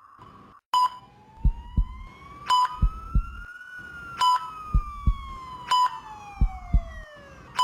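Hospital ICU patient-monitor sound effect: a short high beep about every one and a half seconds, with a low lub-dub heartbeat thump pair between beeps. Through the middle, a siren glides slowly up and then back down in one long wail.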